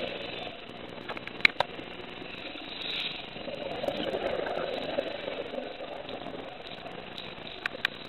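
Scuba regulator breathing heard underwater: exhaled bubbles gurgling at the start, a short hiss of inhalation about three seconds in, then a longer stretch of bubbling. A few sharp clicks sound about a second and a half in and again near the end.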